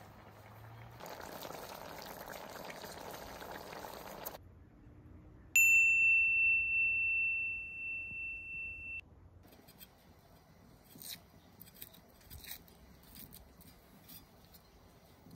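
A rushing noise for about three seconds, then something struck once rings with a clear high tone for about three seconds and cuts off suddenly; faint clicks follow.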